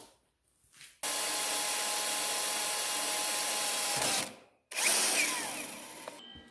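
A power tool runs steadily for about three seconds, stops, then starts again briefly and winds down.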